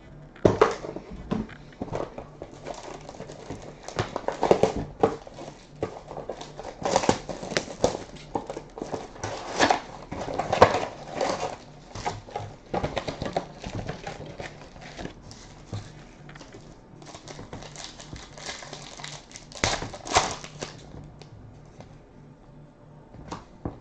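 Foil trading-card pack wrappers crinkling and tearing as packs are opened, with cards rustling in the hands, in uneven bursts of crackles.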